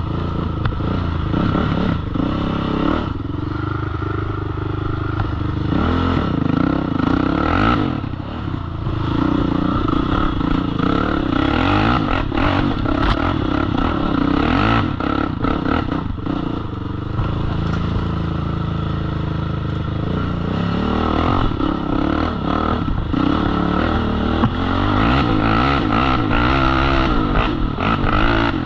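Honda TRX450ER sport ATV's 449 cc single-cylinder four-stroke engine running under throttle, its pitch rising and falling as it revs up and eases off, with clattering knocks from the machine over rough ground.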